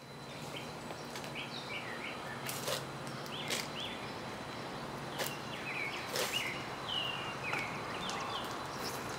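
Outdoor ambience: a steady background hiss with small birds chirping on and off and a few short, sharp taps.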